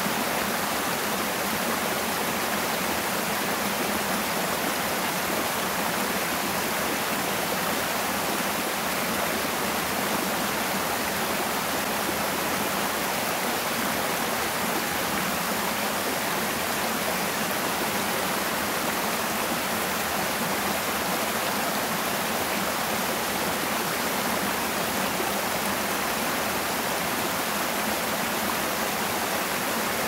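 Mountain stream pouring over rock slabs in a small cascade: a steady, even rush of water.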